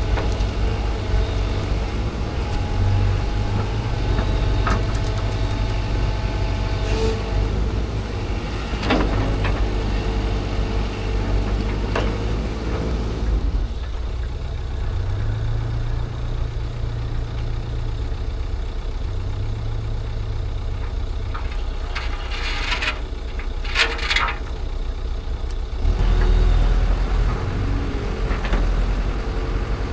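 Engine of a heavy vehicle or machine running steadily with a low rumble, its tone changing about halfway through and again near the end, with a few sharp clanks along the way.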